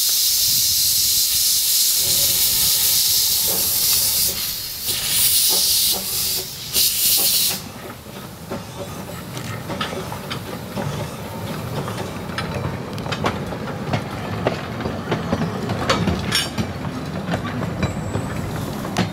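Small narrow-gauge Baguley 0-4-0T steam locomotive hissing loudly with escaping steam; the hiss breaks up and stops about seven and a half seconds in. The engine and its coach then run past, with a low rumble and a string of clicks and knocks from the wheels on the track.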